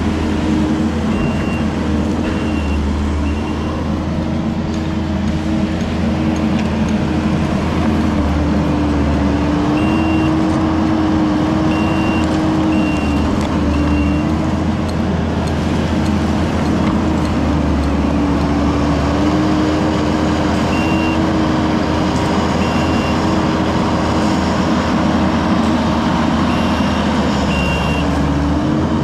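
Heavy vehicle engine running steadily, its pitch drifting a little, with a backup alarm beeping in several short runs.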